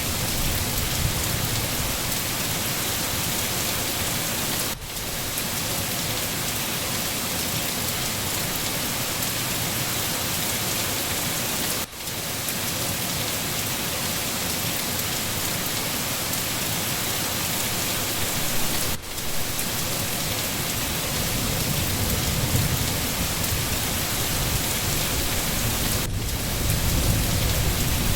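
Steady, even rain. The level dips briefly about every seven seconds, and a low rumble like distant thunder swells near the end.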